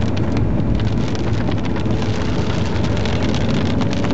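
Inside a moving car's cabin in a downpour: a steady low rumble of engine and tyres on a wet road, with rain striking the car as a dense run of quick ticks.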